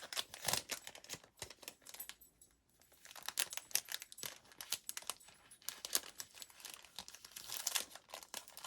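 Packaging crinkling and rustling as it is handled: quick, irregular crackles, with a short quieter pause about two seconds in.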